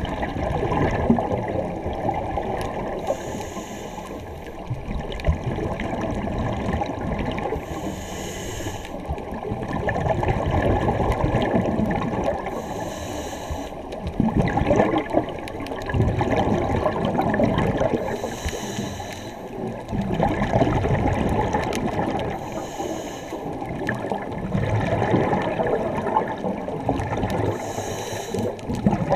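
Scuba diver breathing through a regulator, heard underwater: a short hiss of inhalation about every five seconds, each followed by a long gurgling rush of exhaled bubbles.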